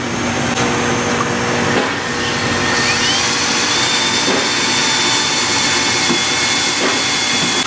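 Milwaukee cordless drill running a step bit through the truck's sheet-metal fender, enlarging bolt holes: a steady motor whir and cutting noise, with a high whine that rises about three seconds in and then holds.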